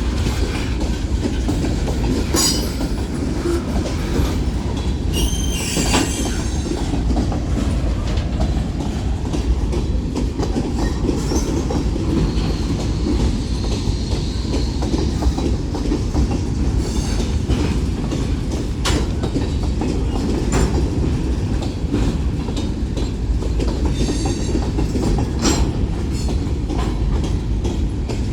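BNSF manifest freight train's cars rolling past in a steady rumble, with wheels clicking over the rail joints and brief high wheel squeals now and then.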